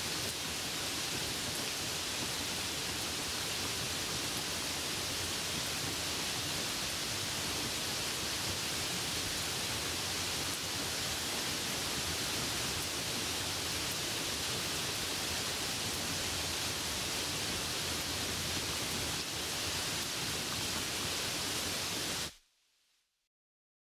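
Rain falling steadily, an even hiss with no separate drops standing out, which cuts off suddenly near the end into silence.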